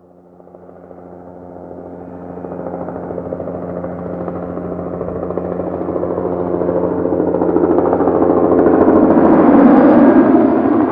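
Helicopter approaching, its steady engine whine and rapid rotor chop fading in from nothing and growing steadily louder to a peak near the end.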